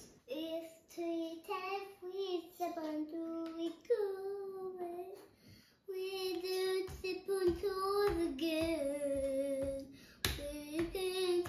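A young girl singing, holding a string of steady notes one after another, with a short break about halfway through.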